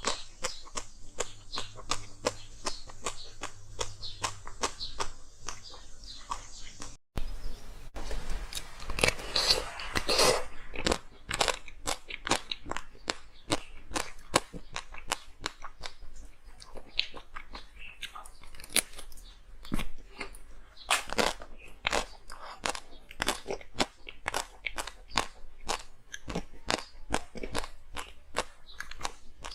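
Close-up crunching of hard frozen ice being bitten and chewed: rapid, dense crackling cracks that go on throughout. The sound drops out for an instant about seven seconds in, then resumes sharper and brighter.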